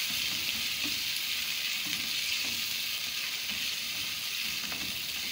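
Mutton masala sizzling in a non-stick pan as freshly added yogurt is stirred in with a spatula: a steady frying hiss with soft scraping strokes of the spatula.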